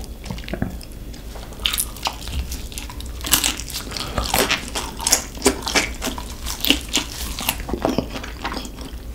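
Close-up crunching and chewing of crispy-skinned Gochu Basasak chicken dipped in cheese sauce: irregular crisp cracks of the skin, starting about two seconds in and thickest in the middle.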